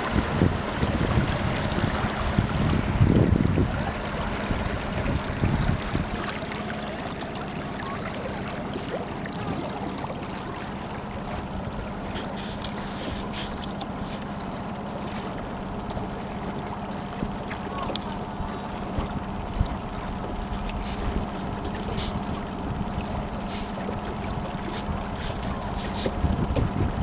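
Water lapping against the hull of a small boat, with wind on the microphone that gusts louder in the first few seconds, under a faint steady hum and a few light ticks.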